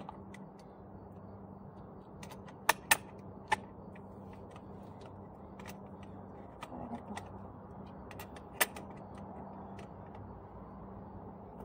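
Sharp metallic clicks and clinks of a wrench and bolt on a wire cart's caster wheel as it is being swapped, a quick pair about three seconds in, another soon after, and a single one near nine seconds.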